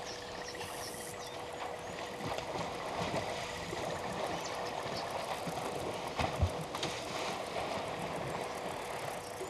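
Water splashing and gurgling in an irregular wash, with one dull thump about six seconds in, over a faint steady hum.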